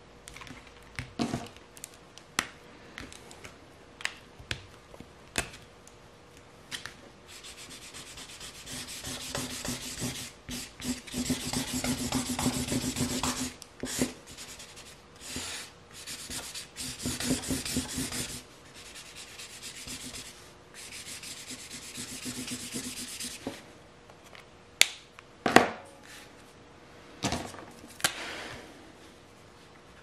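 An alcohol-based marker scribbles back and forth across paper, colouring in a large area in dense stretches with short pauses. Scattered sharp clicks and taps come in the first seconds and again near the end.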